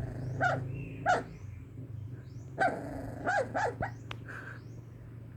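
Sleeping puppy giving short, muffled yips and little barks while dreaming, about six in all, in two clusters: two near the start, then four close together a few seconds in.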